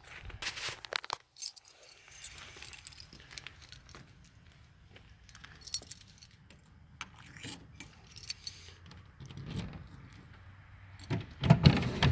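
A bunch of keys jangling, with scattered clicks and handling noises.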